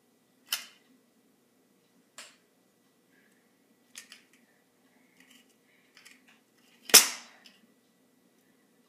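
Sharp plastic clicks and knocks from a dish soap bottle being handled, with one loud snap about seven seconds in.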